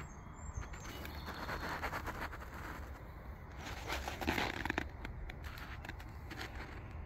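Footsteps scuffing and crunching on gritty asphalt, irregular and heaviest about four seconds in, over a low steady rumble.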